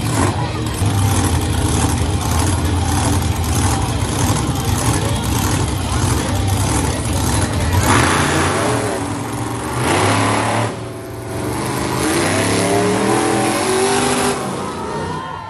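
Monster truck engine running loud and revving, its revs climbing and falling in the second half as the truck drives up onto a row of junk cars.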